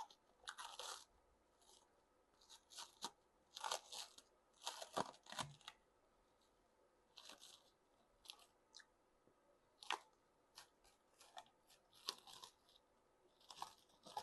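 A person chewing crunchy food close to the microphone: irregular clusters of crisp crunches and mouth sounds, densest in the first five or six seconds, then sparser single crunches.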